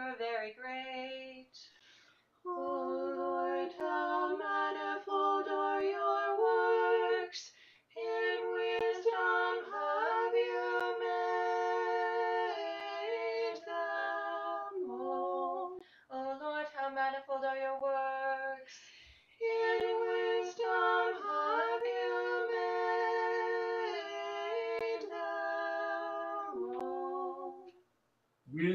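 Two women's voices singing the prokeimenon in the fourth tone a cappella in two-part harmony, in several held phrases with short breaks for breath between them.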